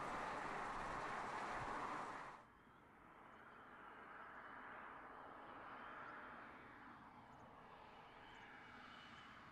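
BMW 5 Series Gran Turismo at road speed: a steady rush of tyre and wind noise that cuts off suddenly about two seconds in. A much fainter rush follows, swelling and fading, with a faint steady high tone over it.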